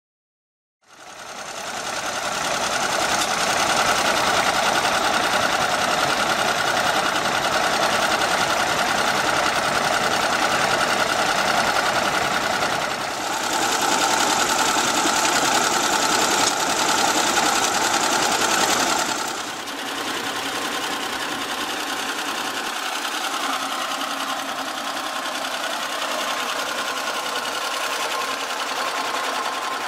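A 1930s Le Roi 3 HP power unit engine running steadily, belt-driving an antique flat-belt centrifugal pump, with water gushing from the pump's discharge hose into a stock tank. The sound steps down a little about nineteen seconds in.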